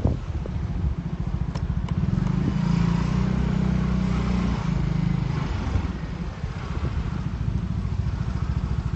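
Small motorcycle engine running steadily as it rides along, swelling slightly a few seconds in, with wind and road rush over it.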